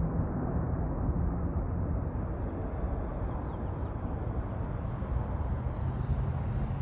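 Steady low rumble of an Airbus A350-1000's Rolls-Royce Trent XWB jet engines heard from a distance, even in level throughout.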